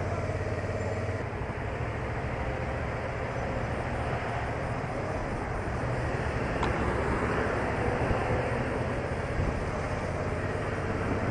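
Motorcycle riding along, its engine running steadily under wind and road noise. A faint single click comes a little past halfway.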